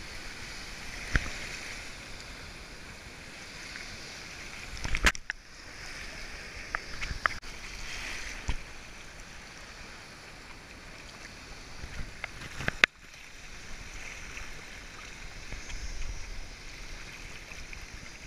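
River rapids rushing and splashing around an inner tube, heard from an action camera at water level. A few sudden sharp knocks cut through the water noise, the loudest about five and thirteen seconds in.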